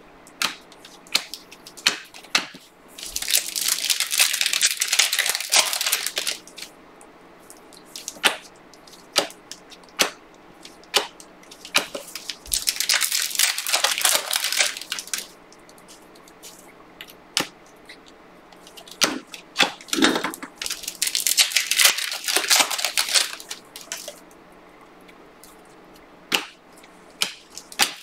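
Panini Prizm basketball card pack wrappers being torn open and crinkled in three long bursts, with sharp clicks of trading cards being flicked and shuffled in the hands between them.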